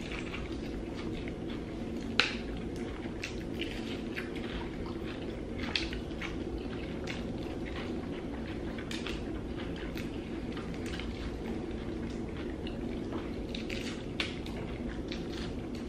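Two people eating fried chicken legs: irregular wet chewing, smacking and tearing of the meat, over a steady low hum. A few sharper clicks stand out, about two seconds in, near six seconds and near the end.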